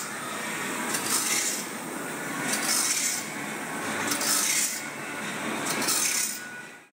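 Automatic band saw blade tooth grinder, its abrasive wheel grinding the steel teeth of a wide band saw blade: a rasping, hissing grind that swells about every second and a half as the wheel works each tooth in turn, fading out near the end.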